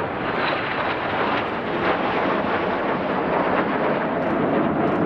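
Jet noise from a formation of five BAE Hawk T1 jets passing: a steady, dense rush of engine sound.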